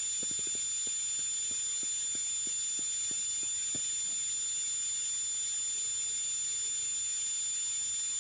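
A steady high-pitched whine made of two constant tones, over an even hiss, with faint soft clicks during the first half.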